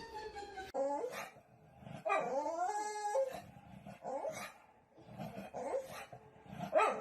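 A dog whining and howling in a string of pitched, wavering cries: a long one about two seconds in, then shorter whimpers.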